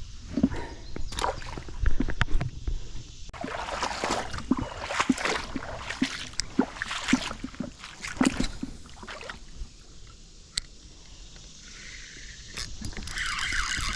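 Water sloshing and splashing irregularly in a shallow creek. Near the end, a fishing reel's ratcheting clicks start up and keep going.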